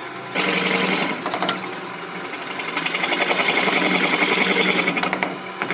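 Wood lathe at low speed, about 700 rpm, with a sphere-cutting tool biting into a spinning wooden ball: a steady motor hum under a fast, chattering scrape of the cut. The cut starts about a third of a second in and grows louder again in the second half. The tool vibrates a little, which the turner puts down to it sitting slightly too high.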